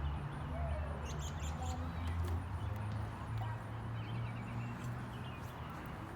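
Birds chirping faintly over a steady low hum, with a few faint clicks.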